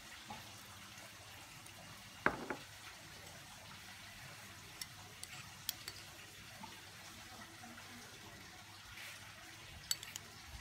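Light knocks and clicks of kitchenware being handled over a faint steady hiss, the clearest knock about two seconds in.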